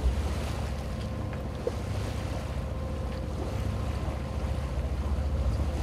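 A boat's engine runs steadily with a low rumble and a faint steady whine, under wind buffeting the microphone and a wash of water.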